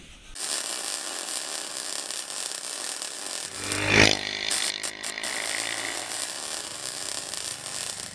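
Channel-intro sound effects: a dense, harsh noise bed that starts suddenly, with a sweeping whoosh and a deep hit about four seconds in.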